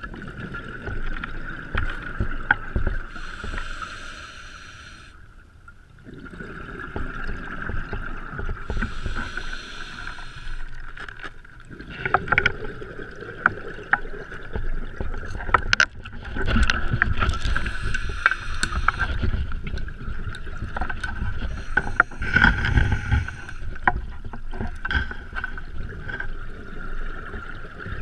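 Scuba diver breathing underwater on an open-circuit regulator: hissing inhalations alternating with rumbling exhaled bubbles, in a slow breathing rhythm. Scattered knocks and clicks of gear against rock come mostly in the second half, as he squeezes through a tight cave passage.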